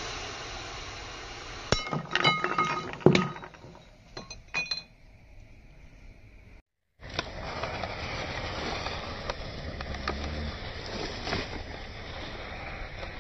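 Burning matches hissing as smoke jets from a glass bottle, then, about two seconds in, the glass bottle cracks and breaks, with a quick run of sharp clinks and ringing glass lasting a couple of seconds. After a short gap, a steady hiss returns as a second match-filled bottle vents smoke.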